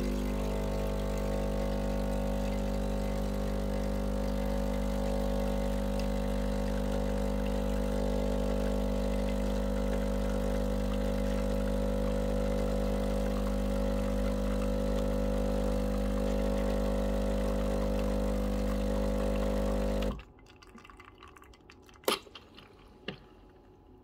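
Breville Barista Pro's vibratory pump humming steadily while an espresso shot extracts, stopping abruptly as the shot ends. Two sharp clicks follow, about a second apart.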